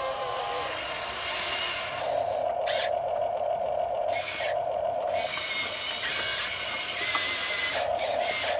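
Electric motors of an RC model excavator whining in bursts as it works, one long run then a shorter one near the end.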